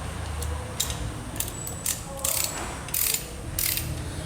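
Large long-handled ratchet with a 21 mm socket clicking in short bursts, about every half second.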